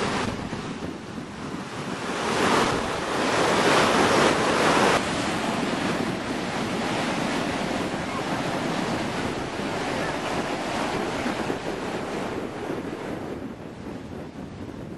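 Ocean surf breaking and washing over a rocky shore, with wind buffeting the microphone. A louder stretch from about two to five seconds in stops abruptly.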